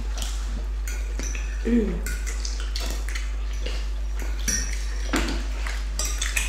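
Spoons and forks clinking and scraping against plates as several people eat rice, in many short, irregular clicks.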